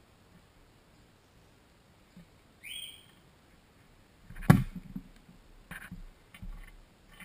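Handling noise from a tablet being tapped and picked up: one sharp knock about four and a half seconds in, the loudest sound, then a few softer bumps. A short high chirp rising in pitch comes a couple of seconds before the knock.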